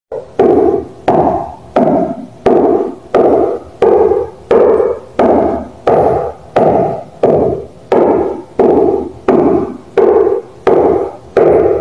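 Fingertips striking a wall over and over in a steady rhythm, about one and a half hollow thuds a second, each dying away over about half a second.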